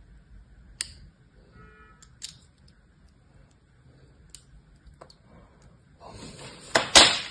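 Metal blade scraping and scoring a bar of dry soap: a few crisp single scrapes spread through the first five seconds, then a denser, louder run of crackly scraping from about six seconds in, loudest near the end.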